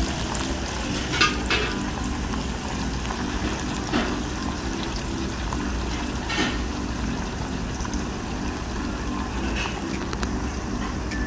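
Sancho (prickly-ash) seeds frying in hot oil in a wok: a steady bubbling fizz with a few sharp pops scattered through, over a low steady hum.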